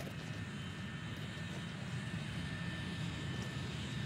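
Steady, even drone of aircraft engines, a low rumble with a faint high whine above it.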